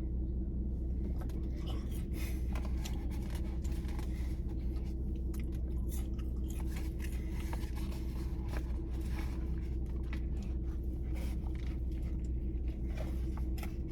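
Close-up chewing of a Big Mac: many small irregular wet clicks and crunches from the mouth, over a steady low hum.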